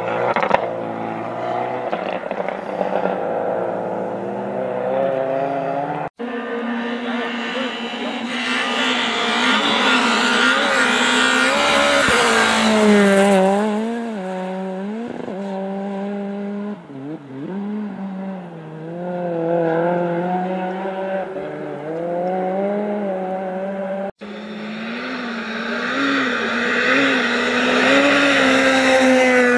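Small front-wheel-drive rally cars, among them a Renault hatchback and a Ford Fiesta, driven flat out on a snow stage one after another, engines revving hard and rising and falling in pitch through gear changes and lifts. A hiss of tyres and thrown snow swells as each car passes. The sound breaks off twice, about 6 and 24 seconds in, where one car's passage is cut to the next.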